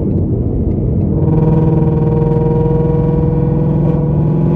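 Ford Mustang GT's 5.0 V8 with catless headers, X-pipe and a single Roush tip, heard inside the cabin at a steady highway cruise: a loud, steady exhaust drone of one held pitch over road rumble, building in about a second in.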